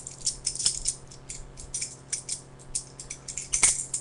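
Balisong (butterfly knife) being flipped: the handles and blade clicking and rattling against each other in a quick, irregular clatter, with a louder knock about three and a half seconds in.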